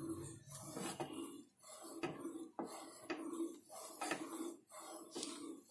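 Wooden spatula stirring and scraping hot milk around a stainless steel saucepan, faint and rhythmic at about two strokes a second. The milk is kept moving as milk powder dissolves in it, so no lumps form.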